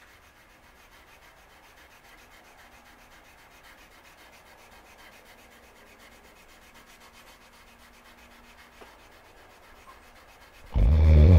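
Hand sanding an AEBL steel knife blade clamped in a vise: faint, steady rubbing of sandpaper over the steel. A sudden loud, low sound cuts in near the end.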